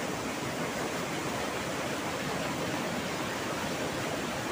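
Steady rushing of fast-flowing river water at a waterfall.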